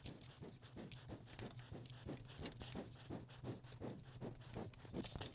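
Hands sweeping cut silicone scraps across a hardboard work board: a quick run of faint brushing and scraping strokes.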